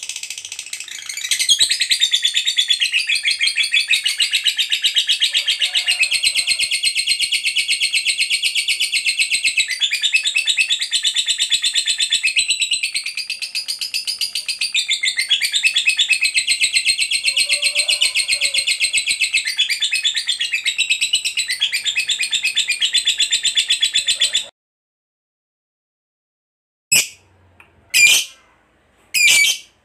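Lovebird singing a long, unbroken run of rapid, high chattering: the 'ngekek panjang' song. It stops abruptly about 24 seconds in, and a few short, sharp chirps follow near the end.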